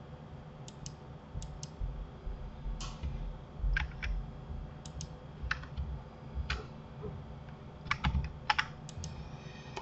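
Irregular clicking of a computer keyboard and mouse, about a dozen sharp clicks, several in quick pairs, over a faint low hum.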